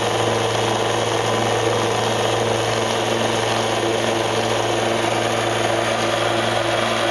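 Central Machinery 1x30-inch belt sander running steadily with nothing on the belt: a steady motor hum under the whir of the belt, while the belt's tracking is being adjusted.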